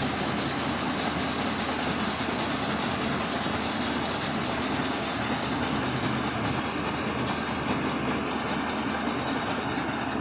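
Electric garlic-cracking machine running steadily while garlic bulbs are fed in and broken into cloves: an even motor hum with a continuous rushing hiss.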